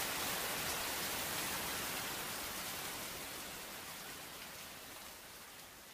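Steady rain falling, an even hiss that slowly fades away.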